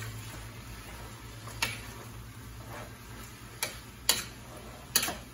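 Metal spoon clinking against the rim and side of a stainless steel frying pan while stirring pork: a handful of sharp, separate clinks, two of them close together near the end.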